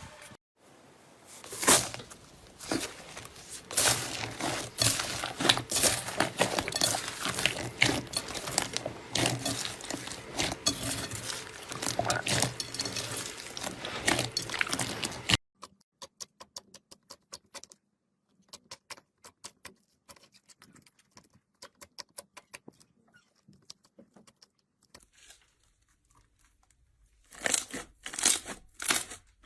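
Slime being squeezed and pressed by hand, making dense crackling and clicking. About halfway through it drops to sparse, quieter clicks, and the crackling grows louder again near the end.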